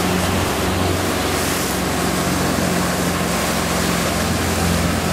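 Boat engine running steadily at trolling speed, a steady low hum, under the rush of water from the wake.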